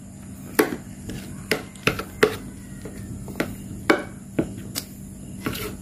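A person eating by hand: about a dozen irregular short clicks and smacks, over a faint steady low hum.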